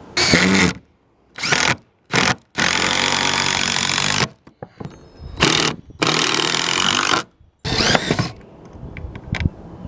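DeWalt 20V cordless impact driver driving screws through a board into a roof beam. It runs in bursts: a few short starts, then two longer runs of a second or two each.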